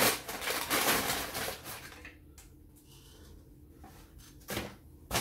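Paper fast-food packaging rustling and crinkling for about two seconds, then a quiet pause and two short rustles near the end.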